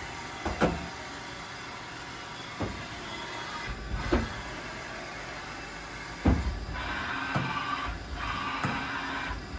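Haas SL-30T CNC lathe running under power with a steady mechanical hum, broken by several sharp metallic clunks, the loudest about six seconds in.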